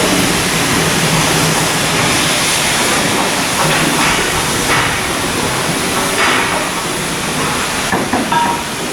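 Steady, loud hissing and crackling noise, with a few faint knocks.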